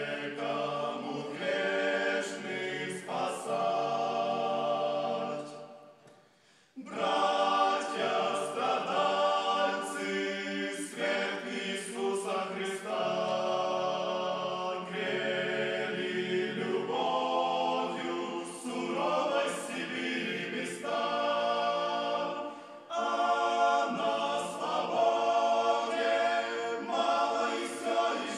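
Several voices singing together in harmony without instruments, in held, chord-like phrases. The singing fades out about six seconds in and comes back abruptly less than a second later.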